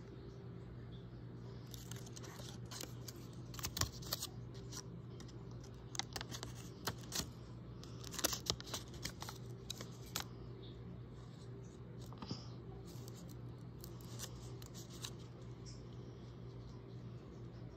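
Paper crackling and rustling in short, irregular snaps as a hand-made paper dragon puppet is handled and flexed, over a steady low hum.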